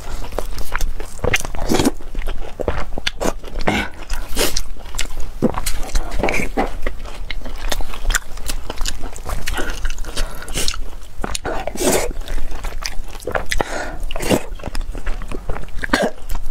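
Close-miked chewing and wet mouth sounds of someone eating red-braised pork belly and rice, with frequent irregular smacks and clicks.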